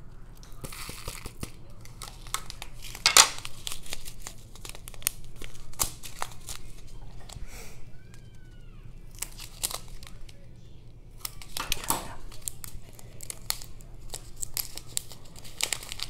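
Crinkling and tearing of a small foil-backed plastic zip bag as it is handled and opened, with scattered clicks and rattles of square diamond-painting crystals tipped on a plastic tray. The loudest crackles come about three seconds in and again near twelve seconds.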